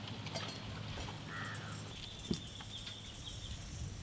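Open-air ambience: a steady low hum, a few light clicks, and a thin, high chirping call in the second half.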